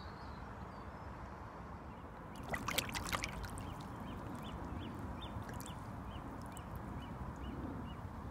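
A tench being released from a landing net into shallow water: a brief splashing and sloshing about two and a half seconds in, followed by faint water noise and a run of short, evenly spaced high chirps.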